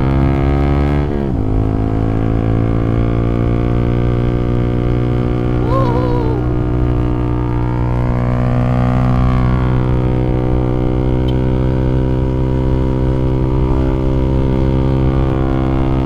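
Motorcycle engine running under steady throttle while riding. Its note drops about a second in, then holds steady.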